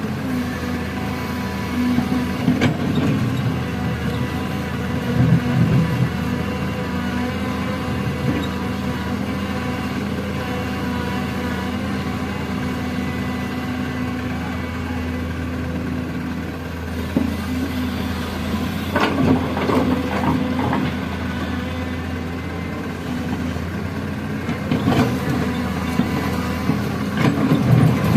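Excavator engine running steadily, with several louder, rougher stretches about a fifth of the way in and again in the last third.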